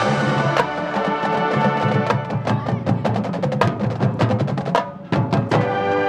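High school band playing, with held wind chords over sharp percussion hits. The music drops out briefly about five seconds in, then comes back on a loud held chord.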